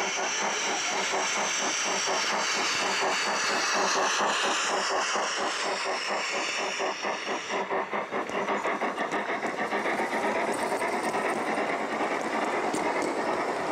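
Gauge 1 model train running on the layout: a fast, even beat of short chuffs or clicks, under a high hiss that cuts off suddenly about eight seconds in.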